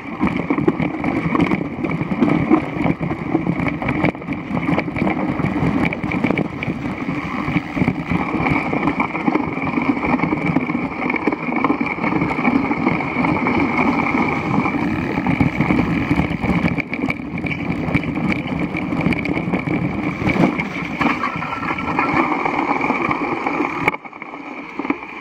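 Mountain bike riding over a wet, rocky trail, heard through a bike-mounted action camera: a loud, steady rattle and rumble of tyres and frame on stones mixed with wind on the microphone. It falls away sharply near the end as the bike slows to a stop.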